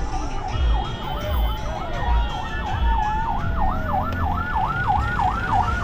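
Vehicle-mounted electronic sirens wailing in fast up-and-down sweeps, about three a second, with more than one sounding at once over the low rumble of the moving convoy.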